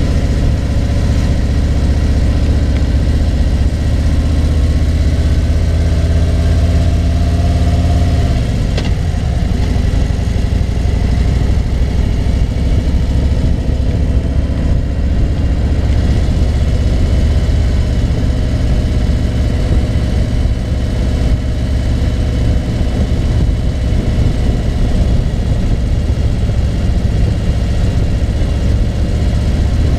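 Touring motorcycle engine running steadily while riding, with a steady rushing noise over it. About eight seconds in, the engine note drops and then settles again.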